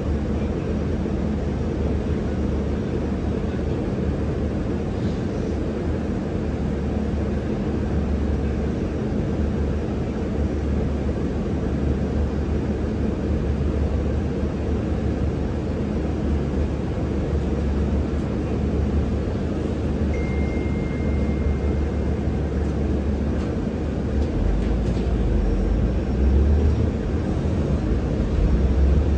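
Cabin noise inside a KAMAZ-6282 electric bus: a steady low hum while it stands still, growing into a louder low rumble as it pulls away near the end.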